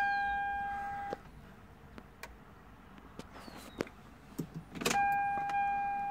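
A steady, high-pitched electrical whine in a 1997 Toyota Supra Turbo's cabin cuts off about a second in as the car's power is switched off. A few sharp clicks of the key and switches follow, and the whine comes back near the end as the power is switched on again.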